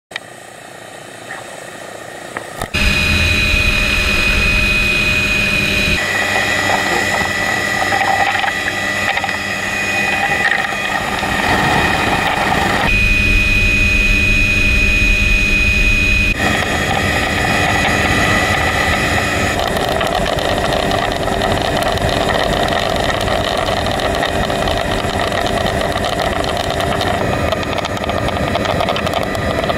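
Light turbine helicopter of the MD 500 type: steady high turbine whine over heavy rotor and wind noise from inside the open-door cabin. It is quieter for the first couple of seconds, then jumps loud about three seconds in, and the pitch of the whine shifts suddenly several times.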